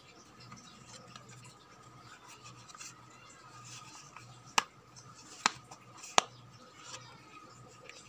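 Fingers rubbing and scratching on the black plastic underside of an electric kettle's base, with three sharp plastic clicks a little past the middle.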